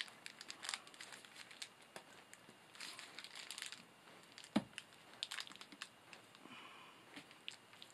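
Plastic insulating bushing being handled and pressed onto the end of a length of 1/2-inch EMT steel conduit: scattered light clicks and rustles, with one sharper knock about halfway through.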